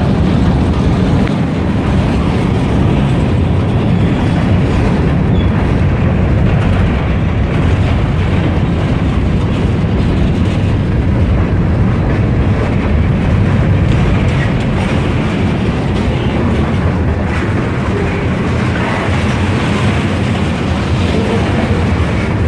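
Freight train rolling past close by: a steady, loud rumble of steel wheels on the rails.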